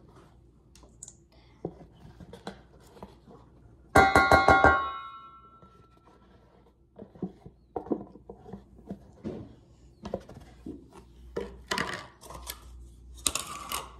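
A metal mixing bowl struck about five times in quick succession about four seconds in, ringing out with a bell-like tone that fades over about two seconds. Softer scrapes and small knocks of scooping Cool Whip from a plastic tub follow.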